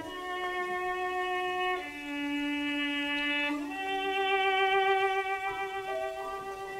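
Cello playing a slow, legato melody in long sustained bowed notes, the pitch changing about every two seconds, on a 1935 recording.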